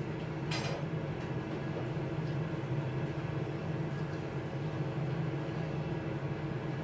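Aicook countertop air fryer oven running with a steady low hum, with one light click about half a second in.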